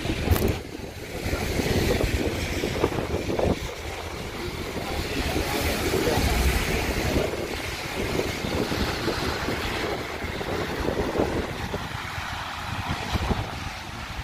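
Gusts of wind buffeting the microphone in an uneven low rumble that swells and eases, over a steady hiss of heavy rain.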